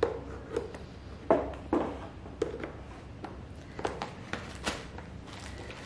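Hard plastic parts of a Vileda steam mop knocking and clicking as they are handled and fitted together: a series of short, irregular knocks.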